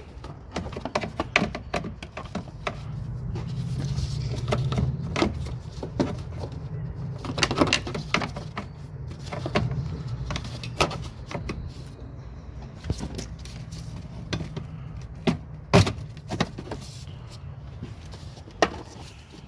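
Irregular plastic clicks and knocks as a car's plastic scuttle panel is slotted and pressed into place under the windscreen. One sharp knock near the end is the loudest, over a low steady hum.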